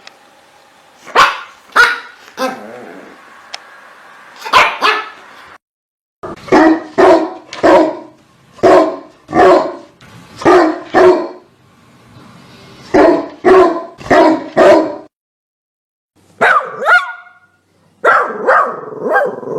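Dogs barking in runs of sharp, loud barks, mostly two or three at a time and up to about two a second. The runs are broken by a few sudden cuts to silence, and a higher, yelping bark comes near the end.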